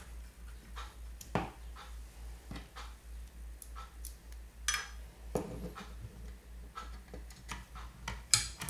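Scattered light clicks and taps of hands handling screws and the orange printed-plastic LCD housing while screwing it onto a 3D printer's frame, a few separate knocks with a cluster near the end, over a faint low steady hum.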